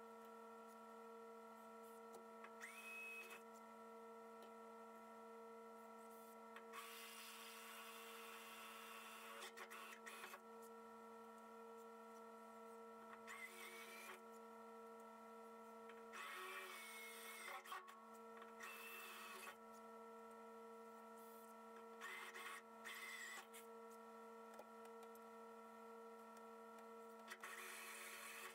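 Near silence: a steady electrical hum of the shop, with several brief, faint bouts of rustling and scraping with thin squeaks from hands at work.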